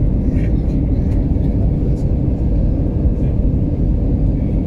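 Steady low rumble of engine and airflow noise heard inside the cabin of an Airbus A320 airliner descending toward landing.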